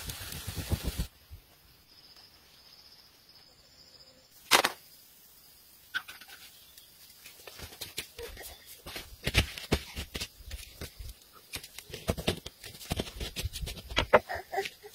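Meat skewers sizzling over a charcoal fire for about the first second, then the fire crackling with scattered sharp pops and ticks, one loud crack about four and a half seconds in, the ticks growing busier toward the end.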